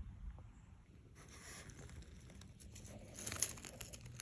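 Faint rustling and crinkling with a few light clicks, over a quiet outdoor background hiss; the rustling comes in two short spells, the second a little louder.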